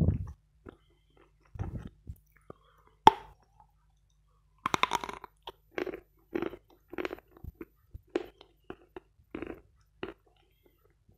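A person bites into a stick of "Vatutin" chalk with one sharp snap about three seconds in, then crunches and chews it in a steady rhythm of about two chews a second. The chalk is hard, dry and crunchy, and is picked up close by a microphone held against the jaw.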